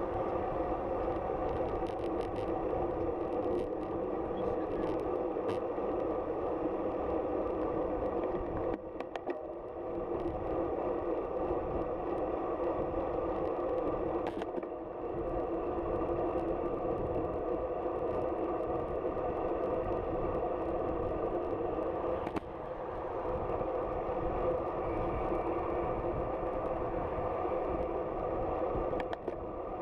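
Riding noise of a bicycle: a steady hum with gusty low wind rumble, and a few sharp clicks and clatters.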